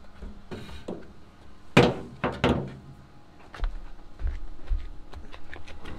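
Three loud knocks close together about two seconds in, followed by lighter taps and clicks: hard objects being handled and set against each other.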